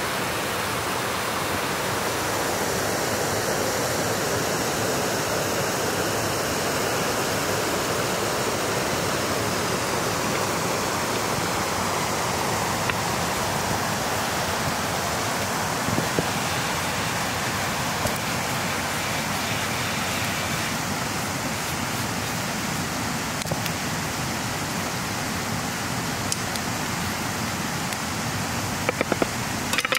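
Fast-flowing stream rushing over rocks, a steady even wash of water noise. A few faint clicks and knocks come through it, most near the end.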